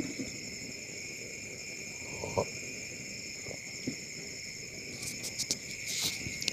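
Crickets chirping in a steady chorus, with a few brief soft knocks.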